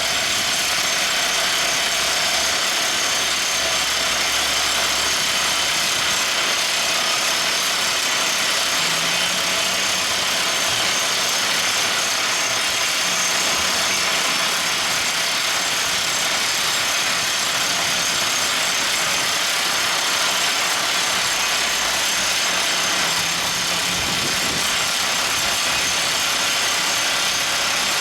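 Everdigm ECD45E top hammer drill rig running steadily, a dense, even, hiss-heavy machine noise with a low engine note underneath that shifts in pitch now and then.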